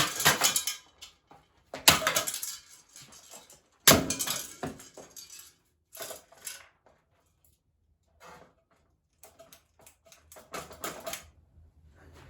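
Sledgehammer blows on a Hampton Bay Littleton ceiling fan: three heavy metal crashes about two seconds apart, each followed by rattling, then lighter clinks and clatter of loose parts.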